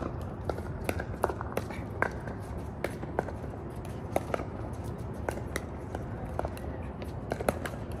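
Pickleball paddles striking the hollow plastic ball on several courts at once: an irregular run of sharp pocks, about two a second, some louder and closer than others.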